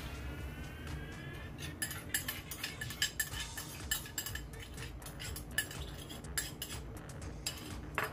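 Metal spatula clanking and scraping against a steel wok as ribs and beancurd sticks are stirred in sauce: irregular sharp clinks, several a second, starting about two seconds in.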